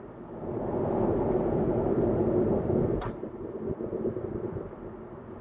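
Tyre and road noise inside a moving Volkswagen e-Golf's cabin, swelling over the first three seconds and then easing off. There is a single sharp click about three seconds in.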